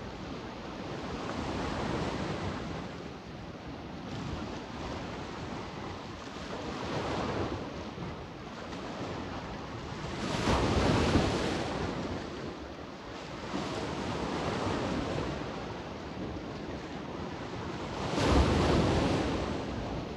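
Adriatic Sea waves washing onto the shore in a continuous, swelling and ebbing wash, with louder breaking waves about halfway through and again near the end.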